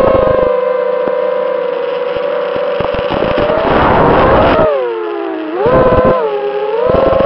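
FPV racing quadcopter's electric motors and propellers whining, heard from the onboard camera, the pitch shifting with the throttle. The whine falls about five seconds in, then climbs back. There are bursts of rushing noise at the start and around four seconds.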